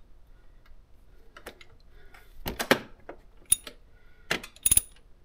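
Metal hand tools clicking and clinking on the exhaust valve adjuster of a GY6-type scooter engine as the tight valve lash is loosened off: scattered light clicks, with a quick run of louder clinks about two and a half seconds in and sharp ringing metallic clinks near the end.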